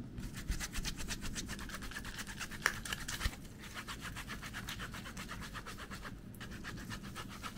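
Watermelon pieces rubbed quickly back and forth against a fine metal mesh strainer, a rhythmic scraping of several strokes a second with two short breaks, as the flesh is pressed through to make juice.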